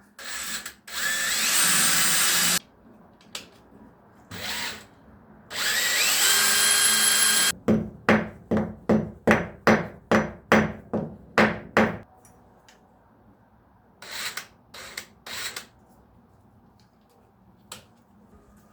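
Power drill running in two long runs of about two seconds each, the second with a whine that climbs in pitch. Then comes a quick series of about a dozen short trigger bursts over four seconds, and three more short bursts later on.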